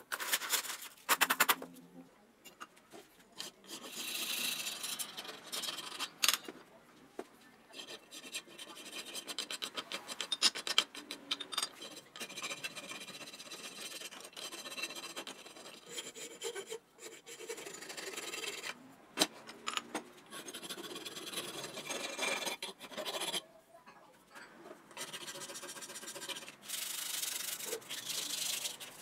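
Hand sanding and scrubbing of metal bicycle parts with sandpaper: repeated rubbing and rasping strokes that come in runs with short pauses. A few sharp metal clinks sound about a second in.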